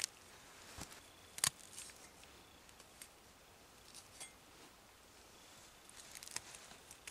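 Knife blade cutting through a small-game carcass's skin and small bones as a red squirrel is butchered: a scatter of faint clicks and snips, the sharpest about a second and a half in and a few close together near the end.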